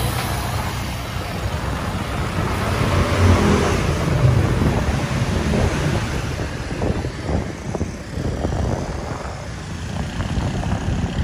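Motor scooter being ridden, its engine running under rushing road and wind noise that swells and dips.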